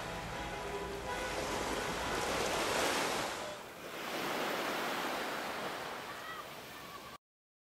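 Sea waves washing onto a beach in two swells with a brief lull between, then the sound cuts off abruptly near the end.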